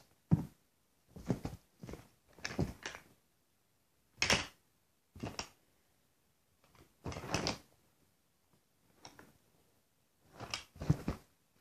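Rummaging through a fabric storage basket: irregular short bursts of rustling and handling noise, with a few soft thumps as things are pulled out and dropped, and brief quiet pauses between.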